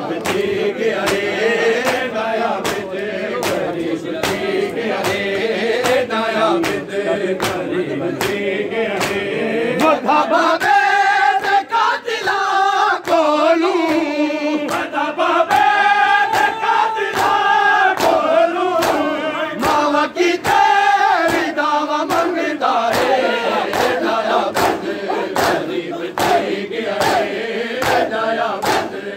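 A group of men chanting a nauha, a Shia mourning elegy, in unison behind lead reciters, with a steady beat of chest-beating (matam) slaps a little more than once a second.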